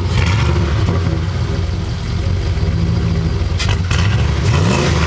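Second-generation Dodge Ram V8 running through a new Flowtech Raptor muffler: a steady, deep exhaust note that rises briefly in a quick rev near the end.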